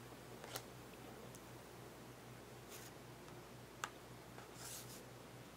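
Faint handling of Pokémon trading cards: two light clicks and two brief soft swishes as cards are slid and flipped, over a steady low hum.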